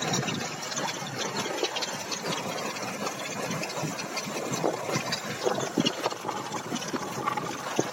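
Chevrolet Caprice GM V6 engine idling unevenly with irregular beats, a misfire from one cylinder bank: the left-side cylinder head is not firing.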